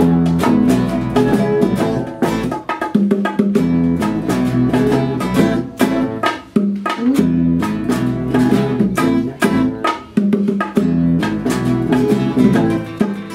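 Instrumental band improvisation without vocals: guitars picking and strumming over an electric bass line, with bongos keeping a steady rhythm.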